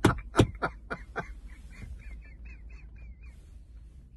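A man laughing hard: quick loud bursts of laughter for the first second or so, trailing off into a run of high-pitched squeaky wheezes, then dying away.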